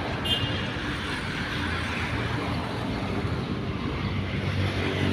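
Street traffic: a motor vehicle engine running with a steady low hum.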